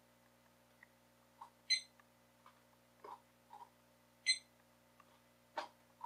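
DreamSky cube alarm clock giving a short, high beep twice, each time it is tipped onto another side to switch mode. Soft clicks and a knock from the plastic case being handled come in between, the sharpest near the end.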